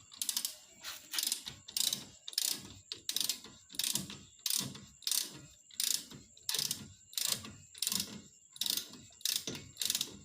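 Ratchet wrench clicking in even back-and-forth strokes, about three strokes every two seconds, as a brake caliper bolt is run in and tightened.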